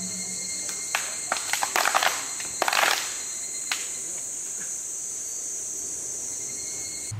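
Steady high shrilling of insects in the trees. Over it come scattered sharp hand claps from a group, loosest and thickest between about one and three seconds in, as at a Shinto prayer.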